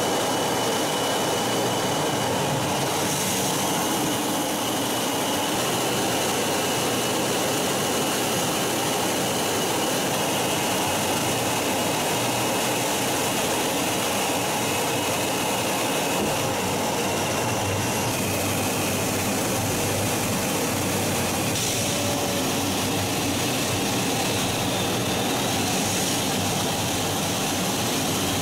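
Jet engine noise of an aircraft in flight, a steady, even roar with a thin high whine that drops slightly in pitch about two-thirds of the way through.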